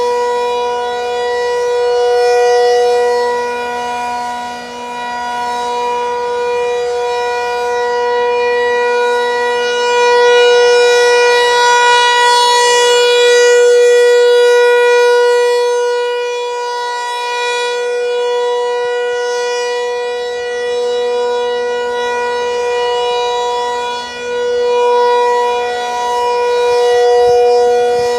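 Federal Signal 508 rotating outdoor warning siren sounding a steady tone at full speed. Its loudness swells and fades slowly as the rotating head sweeps toward and away.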